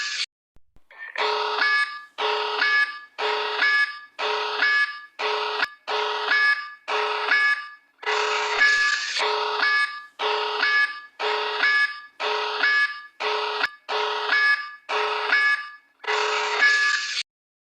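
Pulsing alarm sounding a little more than once a second: each blast is a harsh, buzzy tone with a short upward slide at its end. It cuts off near the end.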